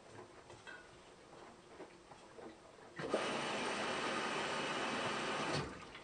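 Front-loading washing machine in mid-wash: faint clicks and ticks for the first three seconds, then a sudden louder steady rushing sound for about two and a half seconds before it dies down.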